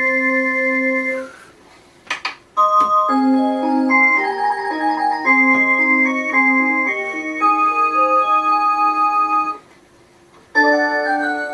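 Electronic melody chime of a mantel clock playing tunes: one tune ends about a second in, and after a short pause with a few sharp clicks, another plays until near the end. After a second pause the next tune begins.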